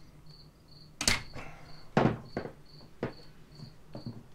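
Hand tools (pliers and a ratchet) knocking and clacking against a wooden workbench and the chainsaw's metal parts as they are handled: several sharp knocks, the loudest about one and two seconds in, smaller ones after.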